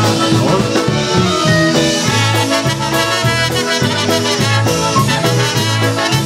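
Live polka band playing an instrumental passage: two trumpets and a clarinet play the melody together over bass guitar and drums, with a steady bouncing beat.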